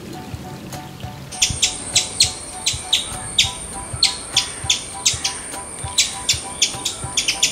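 Rapid high chirping calls, about three sharp chirps a second over a steady high whine, starting about a second in.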